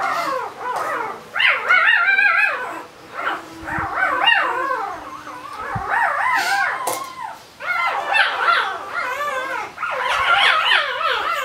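Four-day-old Barbado da Terceira puppy crying in repeated high, wavering squeals while being handled for early neurological stimulation.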